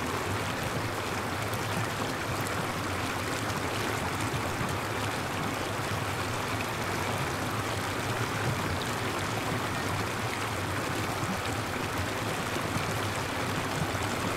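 Steady hiss of water falling and splashing, even throughout, with a faint low hum underneath.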